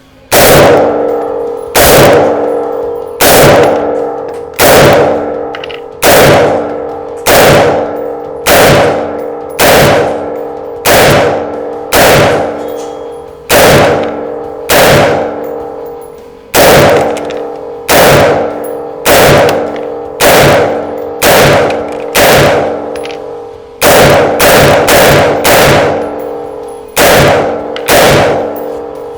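Newly built AR-15 rifle firing a magazine of single shots, about one every second and a quarter, with a quicker string of four shots a little before the end; each shot rings on after the crack. The rifle cycles each round without a malfunction.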